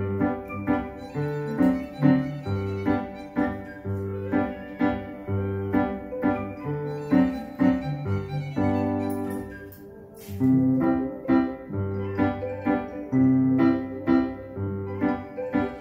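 Electronic keyboard played with both hands in a piano voice: a lively tune of short notes over held bass notes and chords. The playing eases off briefly about ten seconds in, then carries on.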